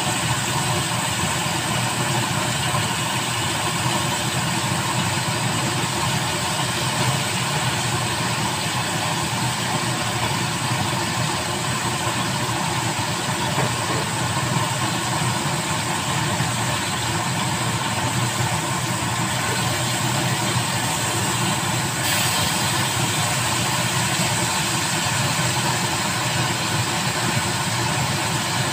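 Steady, even noise from a gas stovetop in use, with chicken cooking in a grill pan over lit burners. It holds constant throughout, with a faint click about three-quarters of the way through.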